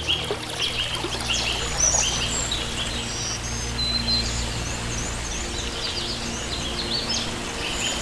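Small birds singing, with short chirps repeated every second or so, over the even rush of running water.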